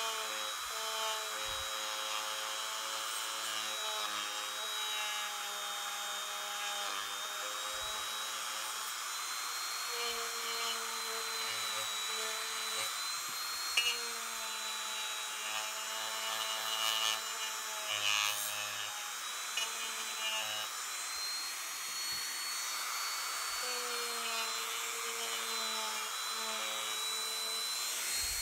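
Handheld rotary tool spinning a felt polishing bob against the steel of an usuba knife blade: a steady high motor whine over a rubbing hiss, with a few brief louder scrapes.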